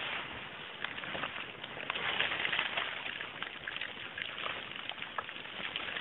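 Rustling and crackling of undergrowth, dry leaves and twigs as people scramble up a steep dirt bank through forest brush, with many scattered small snaps and clicks.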